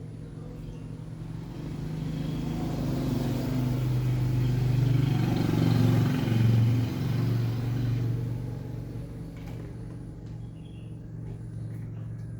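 Motor vehicle engine going by: a low steady drone grows louder over the first half, peaks about six seconds in, then fades away.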